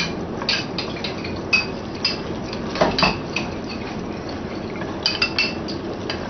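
Light clinks of a spoon against a small bowl mixed with knocks of long wooden cooking chopsticks stirring in a pot, coming irregularly, with a quick run of clinks about five seconds in.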